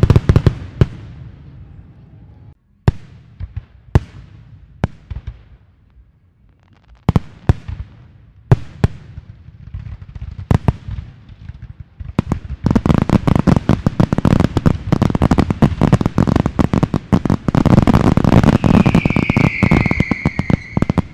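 Fireworks display: separate sharp bangs a second or so apart, then, about twelve seconds in, a dense run of rapid crackling pops. Near the end a high whistle falls slowly in pitch over the pops.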